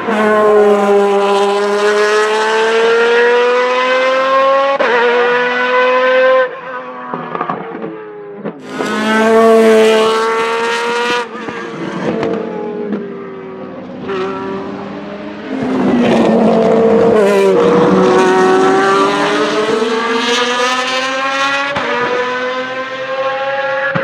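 Lamborghini Murcielago R-SV GT1's 6.5-litre V12 racing engine running hard past the track edge, its pitch climbing and dropping back at each gear change. It is loud, fades about six seconds in, and returns loud twice more as the car passes again.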